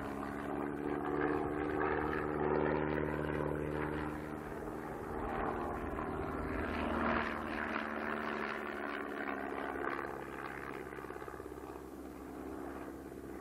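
Single-engine propeller biplane's engine droning through aerobatic manoeuvres. It swells and fades, and its pitch shifts up and down as the aircraft tumbles and changes attitude.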